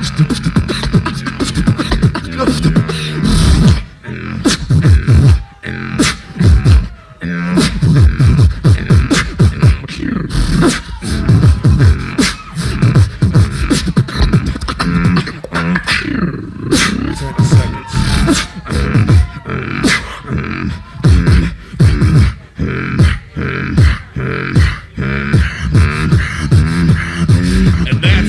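Two beatboxers performing together through microphones and a PA: a loud, steady rhythm of vocal kicks, snares and clicks layered over low, falling bass booms.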